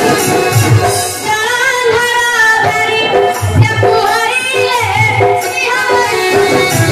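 Folk dance-drama music: a singer's high, bending vocal line over drums and jingling percussion. The drum beat drops away for a stretch in the middle while the voice carries on.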